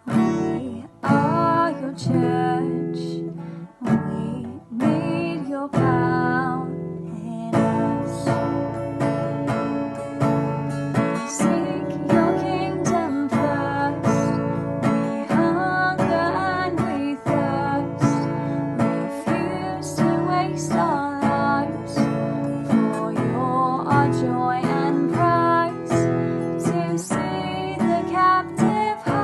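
Worship-song music carried by a strummed acoustic guitar, chords struck in a steady rhythm.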